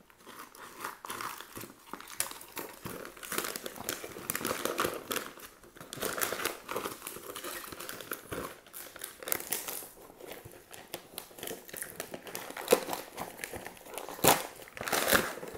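Thick brown kraft-paper wrapping and packing tape crinkling and tearing as they are pulled off a cardboard box, with a few sharp, loud rips near the end.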